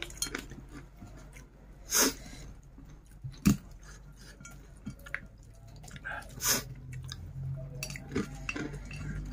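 A man eating rice with his fingers from a ceramic plate: chewing, with small clicks of fingers and food against the plate. Three short, loud, sharp sounds stand out, about two seconds in, at about three and a half seconds, and about two-thirds of the way through.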